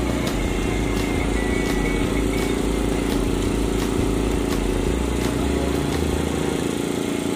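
A steady low mechanical drone of a running motor, unchanging, with faint music behind it.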